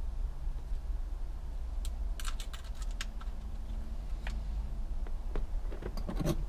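Scattered small plastic clicks and taps of wiring harness connectors being handled, in a quick cluster a couple of seconds in and again near the end, over a steady low hum.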